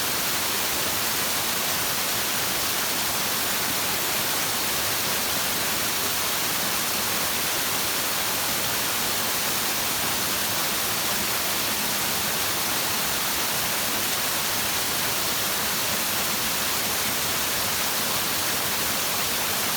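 Flowing stream: a steady, even rushing hiss, strongest in the highs, that does not change.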